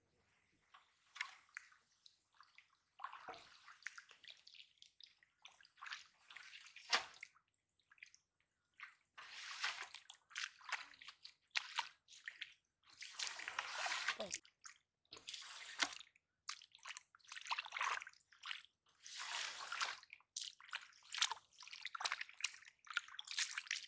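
Hands sloshing and squelching in shallow muddy water, in many short, irregular splashes and drips with brief quiet gaps between them.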